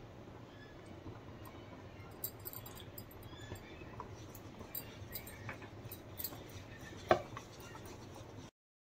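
Wire hand whisk stirring thick eggless cake batter in a plastic bowl: faint soft clicks and wet ticks, with one louder knock about seven seconds in. The sound cuts off just before the end.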